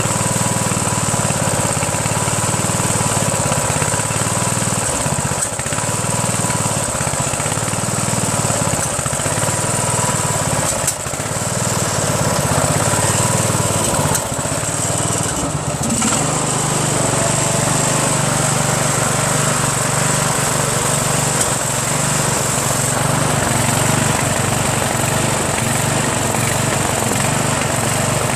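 The 15.5 HP Briggs & Stratton engine of a Craftsman LT1000 lawn tractor running just after starting. It is running on its refitted original magneto, a test of whether the old magneto cures its rough running. Its note wavers with small dips through the first half and runs more evenly after about sixteen seconds.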